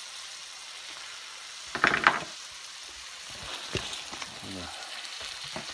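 Garlic butter with sliced onion, ginger and garlic sizzling in a wok as a steady frying hiss. A louder rough burst comes about two seconds in, and a few light clicks follow later.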